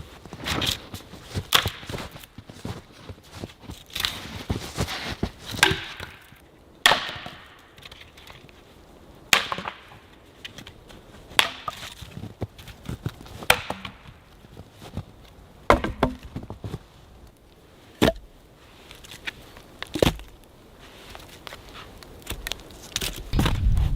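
Wood being chopped: a series of sharp single strikes into wood, roughly one every two seconds, with quieter knocks and handling sounds between them.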